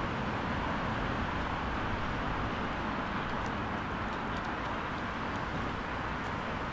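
Steady outdoor background noise, an even hiss with a low rumble, with a few faint light clicks about halfway through.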